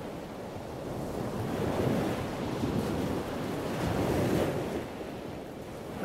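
Surf-like rushing of waves washing in, swelling about two seconds in and again after four seconds.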